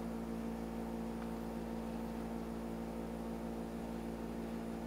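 Steady background hum with several fixed pitches, unchanging throughout.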